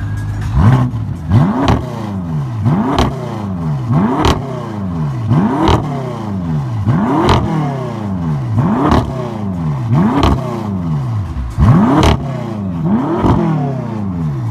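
BMW M5 engine revved in quick blips from idle, about ten times at a steady pace roughly every second and a half. Each blip rises sharply in pitch and falls back slowly. It settles back to idle near the end.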